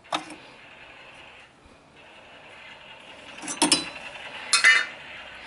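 Metal clinking and rattling of hand tools and loose parts: one click at the start, then two short bursts of clinks about a second apart past the middle.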